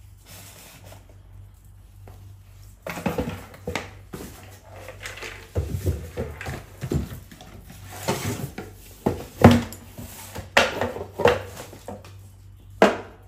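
Cardboard shoeboxes and sneakers being handled on a tiled floor: boxes rustling and scraping, with irregular knocks. The sharpest knock comes near the end.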